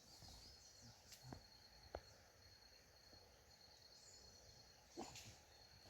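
Near silence filled by faint night insects chirring on one steady high note, with a few faint knocks scattered through it.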